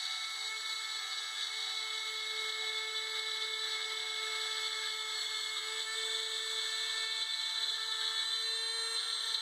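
Dremel rotary tool running at high speed in a V-plotter CNC, its bit cutting a groove into the board as the tool head is drawn along: a steady high whine with a grinding hiss, its pitch wavering slightly.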